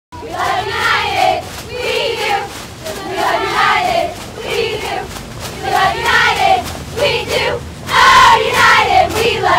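A squad of cheerleaders chanting a cheer together in unison: many high women's voices in short rhythmic phrases, louder near the end.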